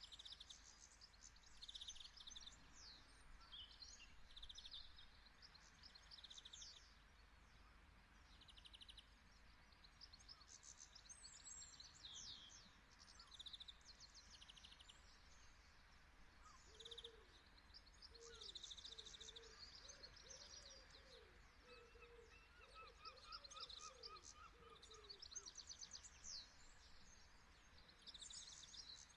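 Faint outdoor birdsong: several small birds chirping and trilling in quick high notes, with a lower, repeated call from another bird running for several seconds mid-way.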